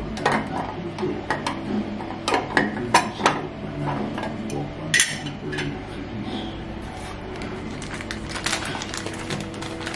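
Clear acrylic cotton-pad container and its lid clicking and knocking against each other and the ceramic sink as it is filled and closed, several sharp knocks, the loudest about three and five seconds in. Near the end a plastic packet of cotton buds crinkles as it is handled.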